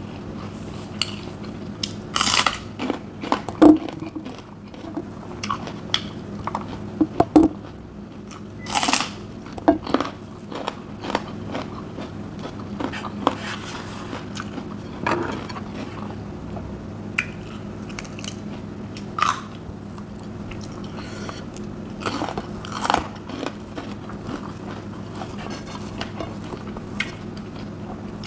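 Close-miked chewing of raw vegetables and rice, with crisp crunching bites every few seconds. A steady low hum runs underneath.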